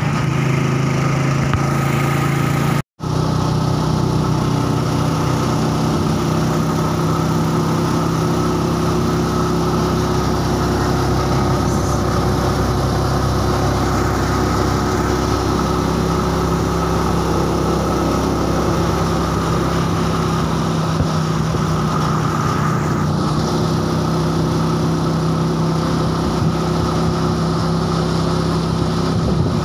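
Motorcycle engine of a passenger tricycle running steadily while driving along a road, heard from inside the sidecar. The sound cuts out briefly about three seconds in.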